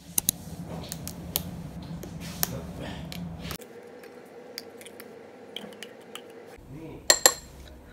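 A metal spoon clicking against a glass dessert bowl and a foil yogurt pouch while plain yogurt is squeezed and scooped out, with scattered light clicks throughout. Two sharp taps about seven seconds in are the loudest.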